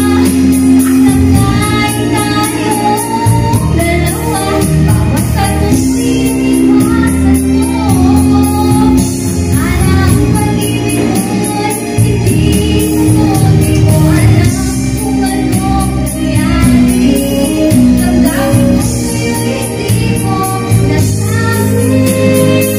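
A woman singing through a handheld microphone over backing music, her melody sliding and bending over sustained chords and a bass line.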